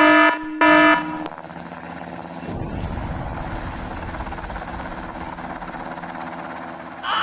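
An alarm buzzer sounding in short, evenly repeated honks, twice, then stopping about a second in, leaving a steady hum that takes on a low rumble from about two and a half seconds in; a voice cries out right at the end.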